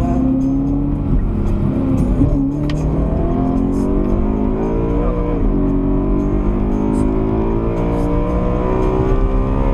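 BMW M3 E92's V8 engine accelerating hard, heard from inside the car. The revs climb and drop with upshifts about a second in and about five seconds in, then climb again.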